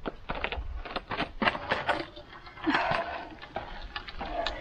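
A wooden wall frame of nailed timber is heaved upright, with a run of sharp wooden knocks and clatters and a short scrape about halfway through.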